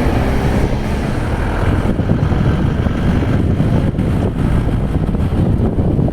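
A moving vehicle running steadily along a road, with a heavy low rumble of wind on the microphone.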